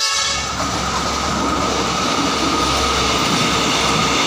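Kualanamu airport rail link train passing close along the track: a loud, steady rush and rumble of wheels on rail, with a thin steady whine over it.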